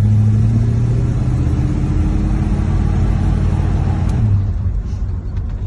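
Plymouth Fury's 383 big-block V8 pulling steadily on the road, heard from inside the cabin, with wind and road noise through the open windows. About four seconds in, the engine note drops and eases off.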